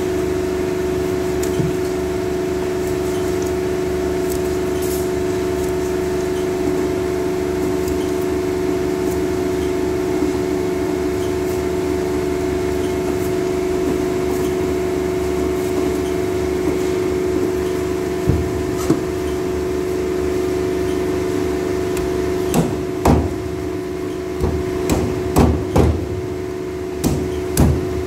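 Steel cleaver chopping a large fish into steaks on a plastic cutting board: a couple of sharp chops about two-thirds of the way in, then a quick run of chops near the end. A steady machine hum with a low tone runs underneath throughout.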